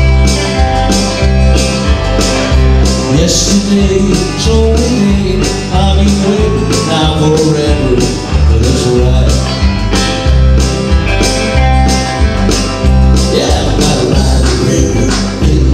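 Live country band playing with two Fender Stratocaster-style electric guitars over a steady beat and a moving low bass line.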